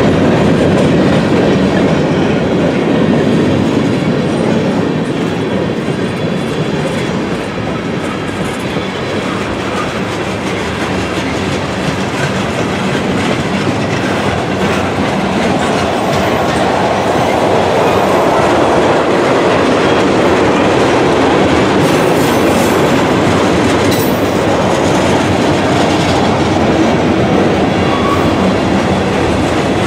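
Freight cars (tank cars, covered hoppers and autoracks) rolling past: steady rumble of steel wheels on the rails with the clickety-clack of wheels passing over rail joints.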